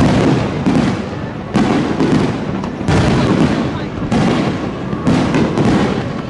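Aerial fireworks going off in a rapid barrage. About seven sharp booms come roughly a second apart, with dense crackling between them.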